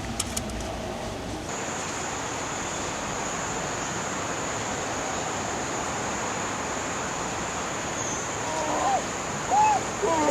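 Steady rushing outdoor background noise with a thin, high steady whine running through it; about eight seconds in, a pigeon starts cooing.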